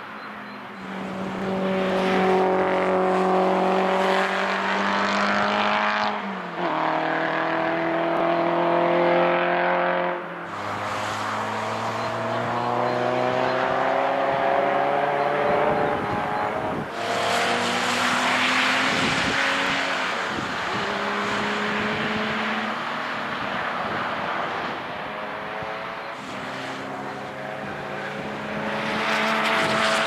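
Historic racing cars' engines at full throttle, several cars in turn. Each engine note climbs steadily, then drops in a step as the car shifts up a gear.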